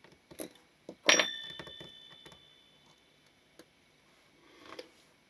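Small metallic clicks from parts of a leaf shutter being handled and seated. The sharpest click comes about a second in and leaves a thin metallic ring that fades away.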